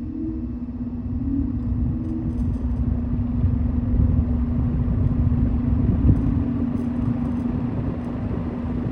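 Vintage Sears Homart box fan running on low speed: a steady motor hum with the rush of its airflow buffeting the microphone, growing louder over the first few seconds as the blades come up to speed.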